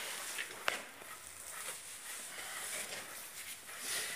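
Light metal clicks and handling noise as a steel cylinder-liner puller is set onto a liner in an engine block, with one sharper click a little under a second in.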